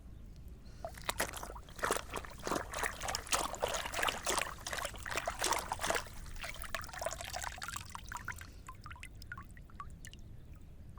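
Water trickling and splashing in a dense crackle of small splashes. It starts about a second in, is busiest for the next few seconds, then thins to scattered drips and clicks.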